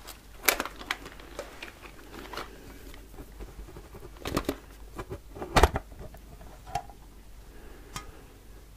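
Long fingernails tapping and scratching on the lid of a metal biscuit tin: scattered sharp clicks, with a louder metallic knock a little past halfway as the lid is worked off.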